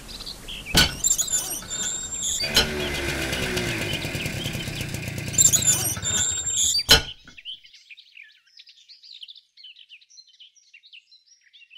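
A steady mechanical noise broken by a few sharp clanks stops suddenly about seven seconds in, leaving faint bird chirps.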